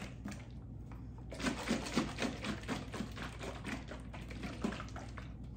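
Lidded glass tomato-sauce jar with a splash of beef broth being shaken to rinse out the leftover sauce. The liquid sloshes and knocks inside the glass about four times a second, starting about a second in and stopping near the end.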